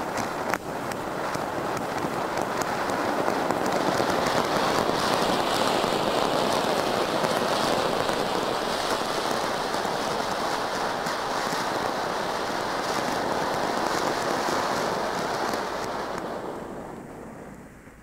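Weco volcano ground-fountain firework burning: a steady rushing hiss of gold sparks with many small crackles. It dies down over the last two seconds or so.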